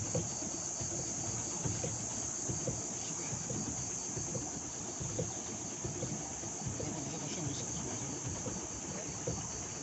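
Chorus of insects, cicadas or crickets, giving a steady, high-pitched buzz with a fast, even pulsing underneath.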